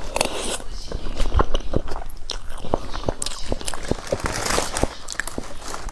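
Close-miked eating of a soft mango-topped mousse: wet mouth and chewing sounds with many short clicks, and a spoon scraping in the cup about four seconds in.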